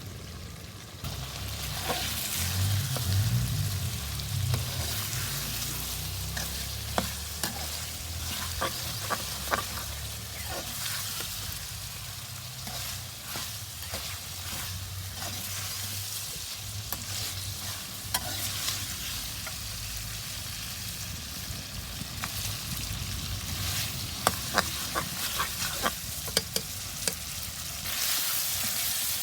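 Chicken curry sizzling as it fries in oil in a pan, with a spoon scraping and clicking against the pan as it is stirred. The sizzle starts about a second in and grows louder near the end.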